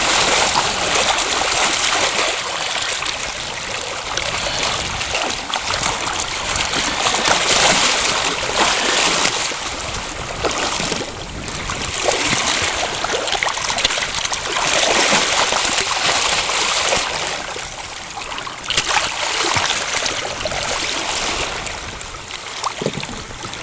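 Water splashing and rushing around a small sailfish held by its bill at the side of a boat, swelling and easing in surges every few seconds.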